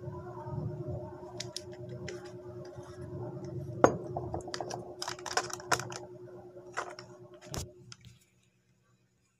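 Irregular clicks and knocks from close handling, two of them sharper and louder, over a steady low hum. The sound cuts off suddenly about eight seconds in as the phone is handled.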